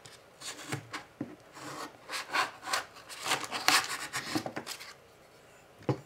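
A knife blade sawing and scraping through a plastic blister pack and its card backing: a run of irregular rasping strokes, with a sharp click near the end.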